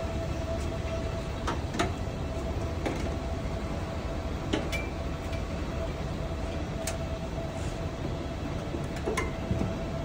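Steady low rumble of outdoor background noise with a faint steady hum, and a few light clicks and taps scattered through.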